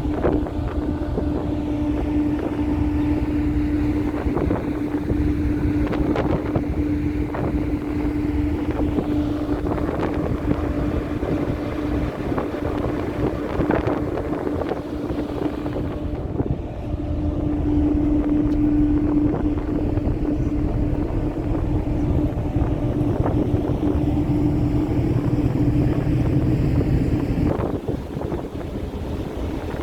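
Moving car ferry's engines running with a steady hum and low rumble, wind buffeting the microphone, and a few scattered knocks.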